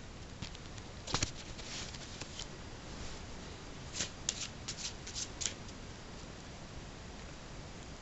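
A deck of playing cards being shuffled and handled by hand: a few quick card flicks about a second in, then a quicker run of flicks between about four and five and a half seconds in.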